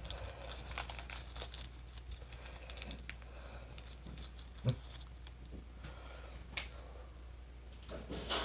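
Plastic snack packet crinkling as it is handled, with dense crackling for the first couple of seconds, then scattered crackles and a sharp, loud snap near the end.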